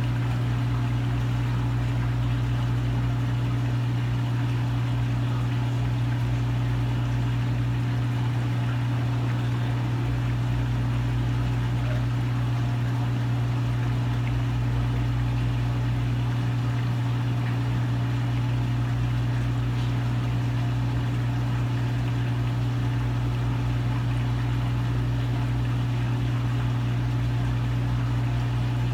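Saltwater aquarium equipment running: a steady low hum, probably the tank's pump, over an even hiss of moving water.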